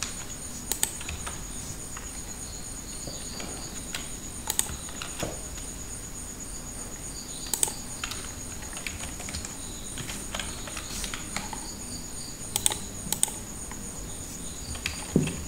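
Sparse computer mouse and keyboard clicks, about half a dozen spread a few seconds apart, over a steady high-pitched, pulsing trill in the background.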